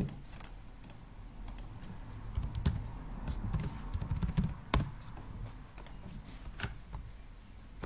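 Typing on a computer keyboard: a quick run of keystrokes about two to five seconds in, with a few single key taps before and after.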